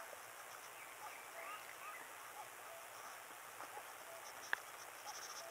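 Faint waterside ambience of small birds chirping and insects trilling, with one sharp click about four and a half seconds in.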